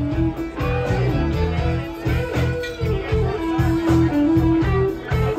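Live band playing with no singing, electric guitar to the fore over bass and drums keeping a steady beat.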